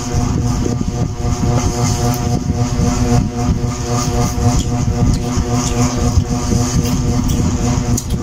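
Loud, steady machine drone: a constant motor hum over a low rumbling noise, unchanging throughout.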